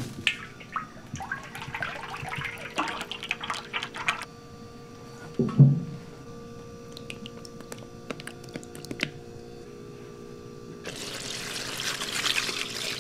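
Cooking oil glugging and splashing out of a large tin into a steel wok for about four seconds, followed by a single thump, the loudest sound here. Near the end comes a steady pour of liquid into a steel mixing bowl, over steady kitchen hum.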